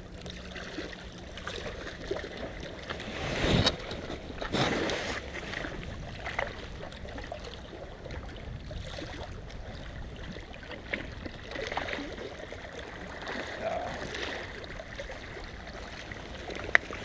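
Seawater washing and lapping against shoreline rocks, with two louder splashing surges about three and a half and five seconds in, and one sharp click near the end.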